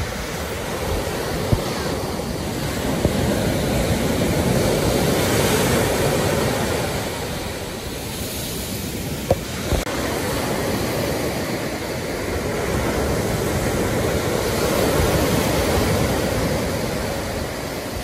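Surf breaking and washing up onto a sandy beach, swelling louder twice and easing off, with wind on the microphone.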